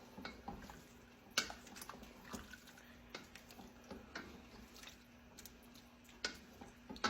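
Pot of creamy chicken and rice soup bubbling on the stove: scattered soft pops and plops, with a few sharper clicks, over a faint steady hum.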